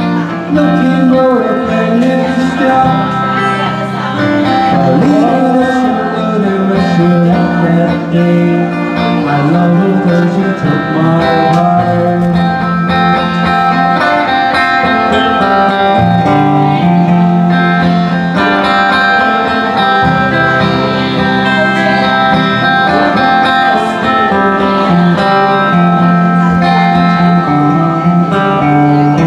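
Small live band playing a 1960s pop tune: guitars over a steady moving bass line, without a break.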